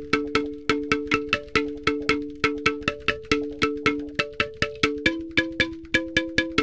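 Background music: a plucked or mallet instrument playing quick, evenly spaced two-note chords, about four or five a second, each note struck sharply and ringing briefly.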